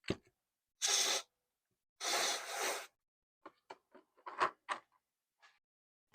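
Two short scrubbing or rubbing strokes on a hard lure body, the second longer, then a scatter of small clicks and knocks as the lure is handled.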